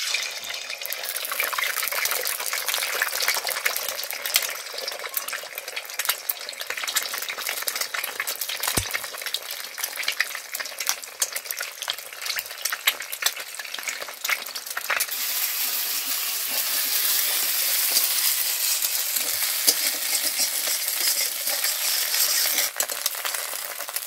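Eggs sizzling as they fry in hot oil in a metal kadai, with sharp clicks of a steel spoon and spatula against the pan as the eggs are cracked in and scrambled. The sizzle grows louder about fifteen seconds in.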